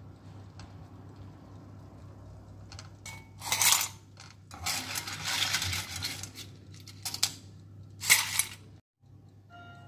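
Cooked clam shells clattering against a wire skimmer and scraping an aluminium pan as the clams are scooped out, in several short bursts, the loudest about three and a half and eight seconds in, over a low steady hum.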